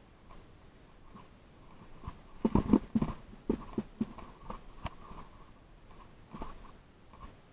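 Irregular crunching knocks and thumps, with a quick cluster of louder ones about two and a half seconds in, then scattered lighter knocks.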